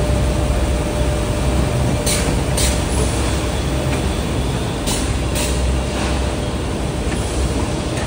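Bakery production-line machinery running: a steady mechanical rumble from conveyors and a bread-tray stacking machine, with a faint steady hum on top. A few sharp clacks come about two seconds in and again about five seconds in.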